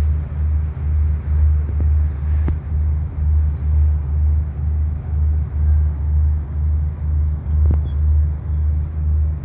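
Low engine-like rumble, pulsing evenly about twice a second, with a few faint clicks.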